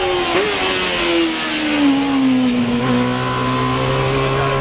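A racing sidecar outfit's engine running hard, its pitch falling steadily over the first three seconds, then holding a steady, lower note.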